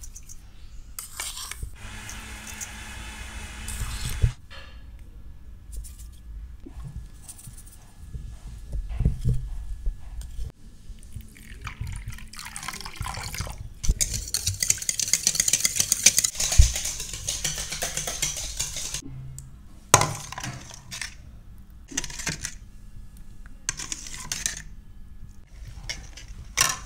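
Metal utensils working yogurt in a stainless steel bowl: a spoon scraping and tapping against the bowl, then a wire whisk beating the yogurt with rapid clinking and scraping against the metal for several seconds in the middle. A few sharp single knocks of metal on the bowl follow.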